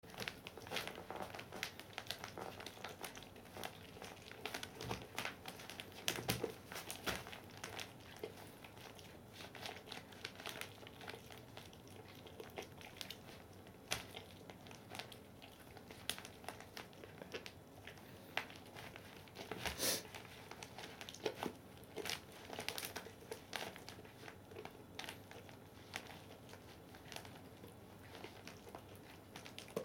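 Basset hound gnawing and crunching a hard chew treat, with irregular sharp cracks and clicks and the crinkle of the newspaper under it.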